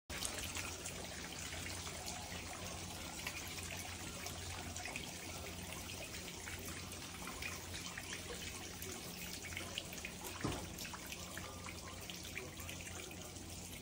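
Rainwater trickling and dripping down a cup-style rain chain, a continuous wash of water with many small drip ticks over a steady low hum. There is one louder tap about ten and a half seconds in.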